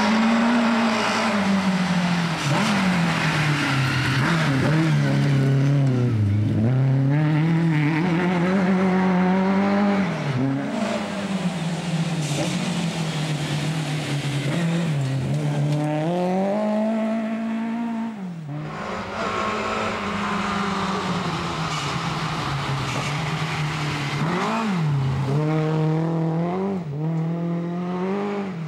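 Lada rally car's four-cylinder engine driven hard on a gravel stage, its pitch repeatedly climbing and falling with throttle and gear changes, with a brief drop about two-thirds of the way through.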